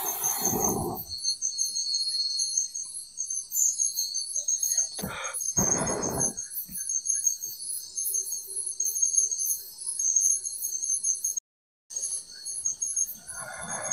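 A chorus of night insects chirps in fast, high-pitched pulses without a break. Two brief louder noises stand out, one at the start and one about five to six seconds in, and the sound cuts out for a moment near the end.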